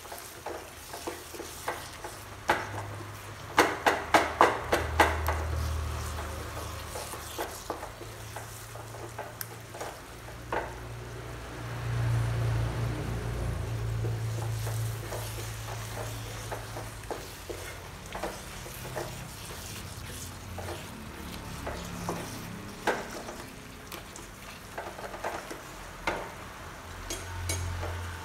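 Curry masala frying and sizzling in a pan while a spoon stirs and scrapes through it. About four seconds in the spoon gives a quick run of sharp clinks against the pan.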